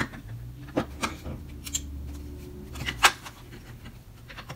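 Scattered small clicks and taps of the parts of a Makita cordless drill being handled and pressed together as its trigger switch is fitted into the housing. The sharpest click comes about three seconds in.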